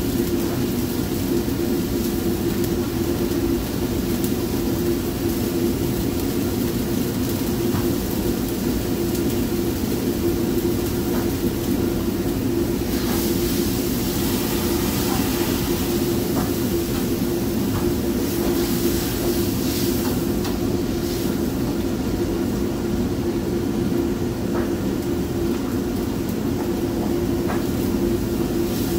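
A steady low mechanical drone with a constant hum, even in level throughout, with brief higher hissing about halfway through.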